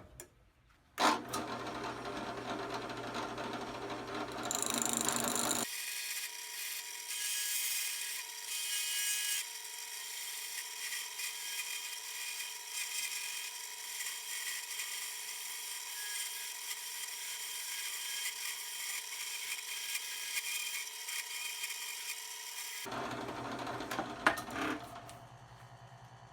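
Drill press spinning a wooden workpiece at higher speed while a hand rasp shapes it: a steady motor hum under a continuous scraping rasp on the wood. The tone of the noise shifts abruptly about six seconds in and again near the end.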